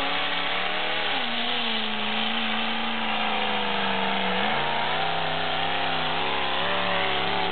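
Ford Bronco II engine revving hard and held at high revs as the truck plows through a mud pit. Its pitch steps down about a second in and shifts again a little past the middle.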